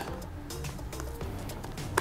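Faint background music, with light clicks of cardboard jigsaw puzzle pieces being handled. Near the end comes one sharper click as a piece is pressed into place.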